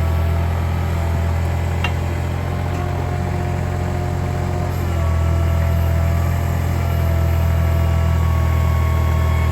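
Engine of a digging machine running steadily, a little louder from about five seconds in. A sharp click about two seconds in.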